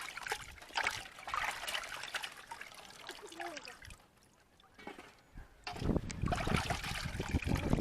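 Water trickling and splashing in irregular bursts, dropping almost to quiet a little past the middle, then a louder, rougher rushing noise from about six seconds in.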